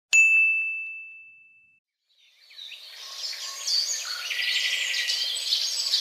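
A single bright ding, struck once and fading over about a second and a half. About two seconds in, birds begin chirping and keep going.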